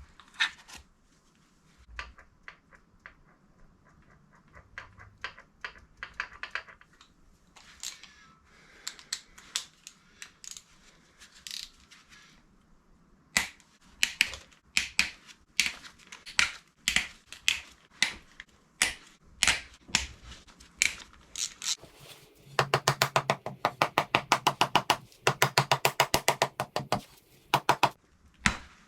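Socket ratchet clicking as bolts are worked loose on a Kawasaki KZ400 engine: scattered single clicks at first, then a long, fast, even run of ratchet clicks near the end.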